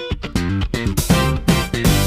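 Background music: an electric guitar and bass tune with a steady beat.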